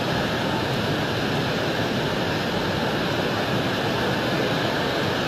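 A river in flood: a steady rush of fast, muddy floodwater pouring through the channel.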